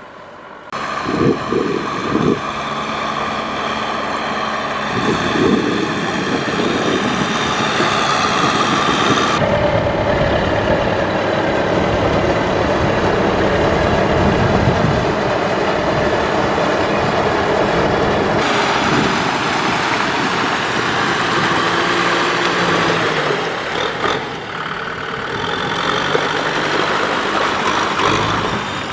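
Tractor engine running steadily under load. The sound changes abruptly about a second in, about nine seconds in and about eighteen seconds in, as one stretch of engine noise gives way to another.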